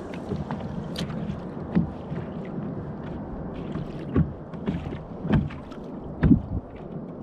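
Water lapping against a kayak hull, with about half a dozen sharp slaps or knocks.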